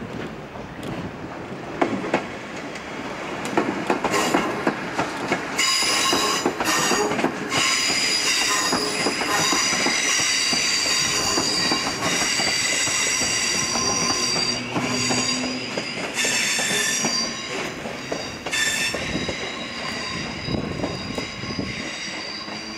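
A London Midland Class 350 electric multiple unit running through the station, its wheels clicking over rail joints. From about five seconds in, the wheel flanges squeal in high, shifting tones that come and go for some thirteen seconds.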